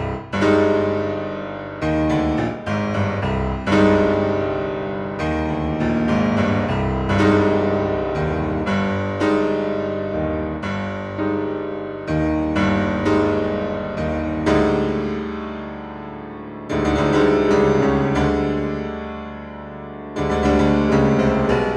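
Solo piano music: chords struck and left to ring out and fade, with a new chord every second or two.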